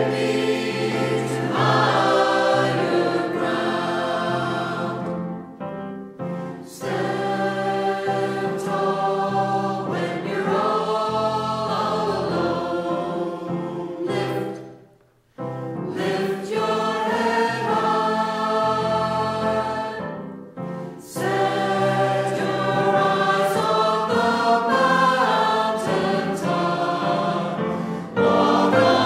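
Church choir singing slow, held chords with no words made out, breaking off briefly about fifteen seconds in and dipping near six and twenty seconds.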